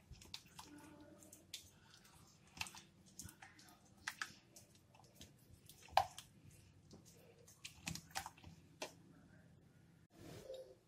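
Silicone spatula stirring a thick, creamy mixture in a glass bowl: scattered faint clicks and scrapes of the utensil against the glass, the sharpest click about six seconds in.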